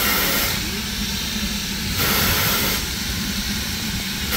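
Steam locomotive standing at the platform, hissing steam steadily, with louder bursts of hiss about every two and a half seconds.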